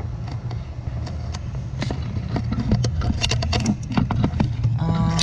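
Clicks, knocks and rattles of things being handled inside a car, over a steady low hum.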